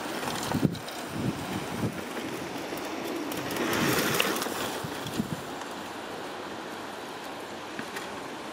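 Mountain bike's knobby tyres rolling over a dirt track, a steady rushing noise that swells as the bike passes close about four seconds in, with a few knocks in the first two seconds.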